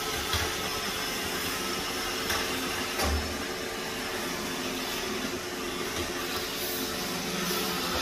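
iRobot Roomba i7+ robot vacuum running across a hard tile floor: a steady whir of its suction motor and brushes, with a brief knock about three seconds in.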